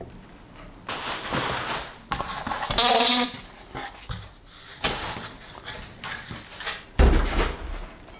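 Cardboard and foam packaging being handled: rustling and scraping as a cardboard frame is pulled off the packed printer, with a short squeak about three seconds in and a dull thump about a second before the end.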